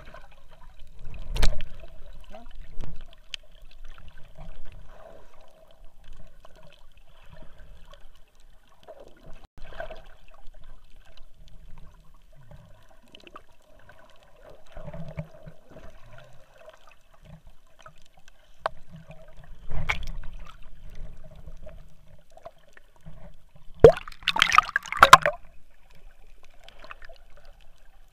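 Muffled underwater water sounds picked up through an action camera's waterproof housing: low sloshing and bubbling with scattered short knocks, and a louder burst of bubbling about three-quarters of the way through.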